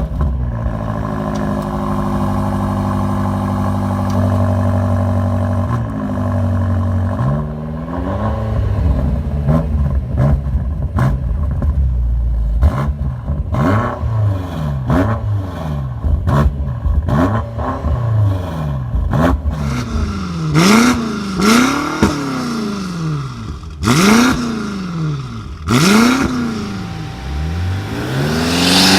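BMW M5 F90's twin-turbo V8 idling steadily at first. After about six seconds it is revved again and again in short blips, the pitch climbing and falling each time. The revs go higher and come in quicker succession near the end, with sharp cracks between the blips.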